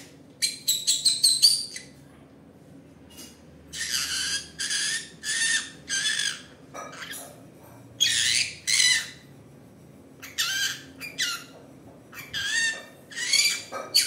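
Green-cheeked conure calling: a quick run of short notes about half a second in, then groups of two to four loud, harsh calls spread through the rest.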